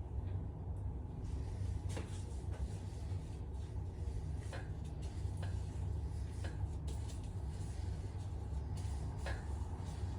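Steady low hum with scattered light clicks and knocks of metal parts and tools being handled during engine assembly.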